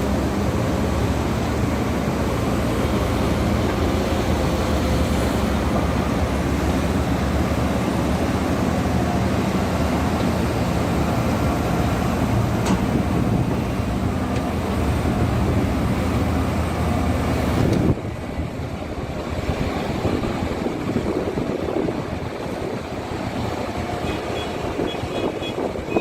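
Diesel engine of a CAT excavator running steadily with an even low hum. About two-thirds of the way through, the sound cuts off abruptly to a rougher, noisier mix without the steady hum.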